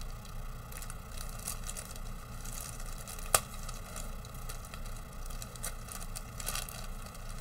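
Clear plastic bag holding a plastic model kit's clear-parts sprue, crinkling and rustling as hands handle it, with one sharp click a little over three seconds in.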